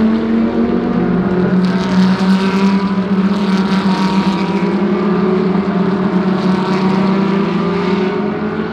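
GT3 race car engines running at low, steady revs, with droning tones that drift slightly in pitch. A rushing noise swells for a couple of seconds near the middle.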